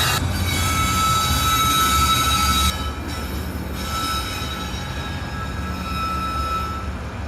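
Slow-moving freight train hopper cars rolling past, with their steel wheels squealing against the rails in a few steady high tones over a low rumble. The squeal drops off suddenly between three and four seconds in.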